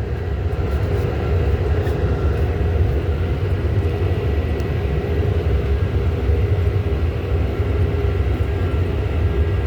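John Deere tractor engine running steadily under way, a continuous low drone with faint steady tones above it.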